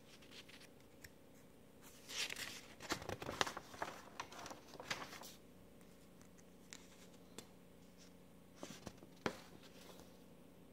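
Paper pages of a handmade booklet being turned and handled: crackling rustle with sharp clicks in two spells, a longer one about two seconds in and a shorter one near nine seconds, over a faint steady hum.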